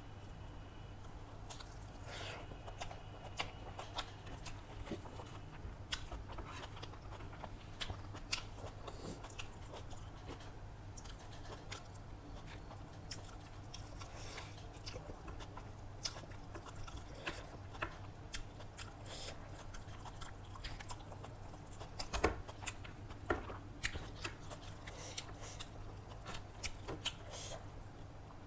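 Close-up eating sounds: a person chewing and biting food, with irregular wet mouth clicks and smacks over a steady low hum.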